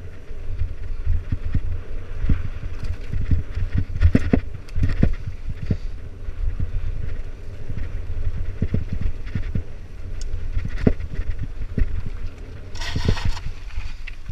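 Mountain bike ridden fast down a dirt forest singletrack: steady wind rumble on the microphone, with frequent sharp knocks and rattles of the bike over bumps, and a brief scraping hiss near the end.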